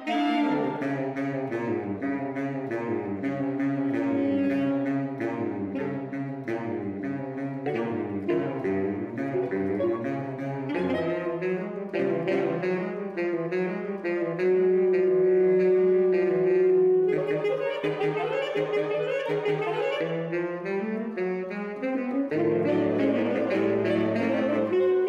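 A saxophone quartet of soprano, alto, tenor and baritone saxophones playing a twelve-tone piece written to imitate a steam train. It opens with quick repeated notes stepping up and down, a long held note sounds about fifteen seconds in, and a low held note comes in near the end.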